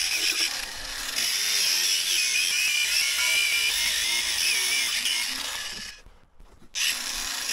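Parkside angle grinder, running on a cheap replacement motor, cutting through a car tyre with a cut-off disc, its motor whine steady under the load. The sound cuts off abruptly about six seconds in and is gone for most of a second.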